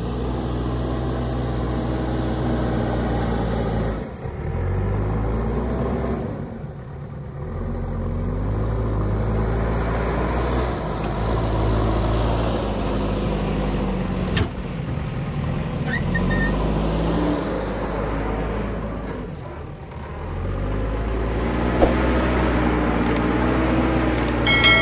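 JCB 3DX backhoe loader's diesel engine working under load, its pitch rising and falling several times as it revs to push and lift sand, with a few sharp knocks near the end.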